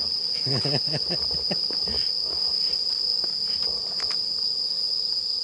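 Night insects calling in a steady, high-pitched chorus.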